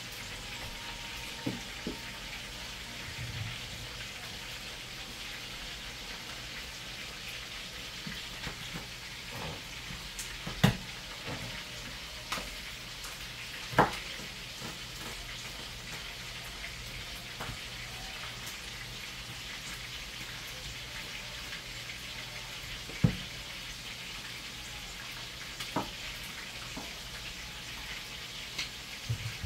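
Chicken frying in a pan, a steady sizzle, likely a batch being browned for brown stew chicken. A few sharp knocks of a knife striking a plastic cutting board as bell pepper and tomato are sliced.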